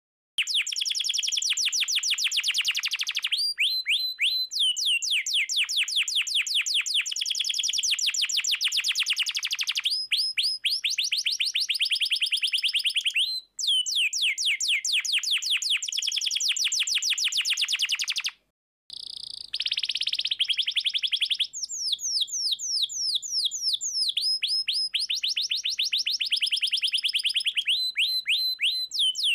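Domestic canary singing continuously in long, rapid rolling trills of fast-repeated high notes. The song breaks off briefly twice.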